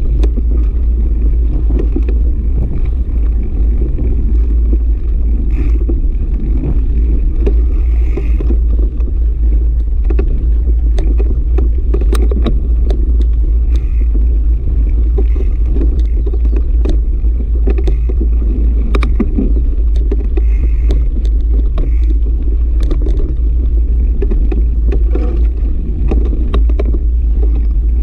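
Mountain bike riding over a sandy dirt trail, heard through a camera mounted on the bike: a loud, steady low rumble of wind and riding noise on the microphone, with frequent sharp rattles and knocks as the bike goes over bumps.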